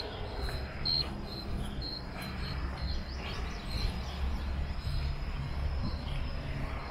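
Crickets chirping: short high chirps repeated about twice a second, thinning out after about two seconds, over a low steady rumble.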